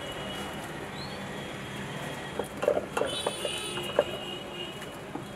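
Busy street ambience: a steady traffic hum, with a few sharp clinks and knocks of serving utensils a little past halfway.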